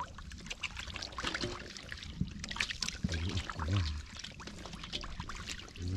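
Shallow water being worked by hand, splashing and trickling in many small, irregular splashes.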